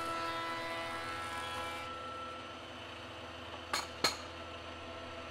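Thickness planer running empty with a steady machine whine that eases off over the first two seconds, then two sharp clacks close together as the planed board is handled on the metal rollers of the outfeed stand.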